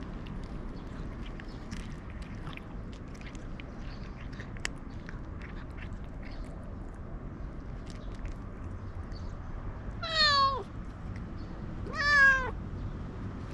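Domestic cat crunching dry kibble with small scattered clicks, then two half-second meows about two seconds apart near the end: the first falls in pitch, the second rises then falls.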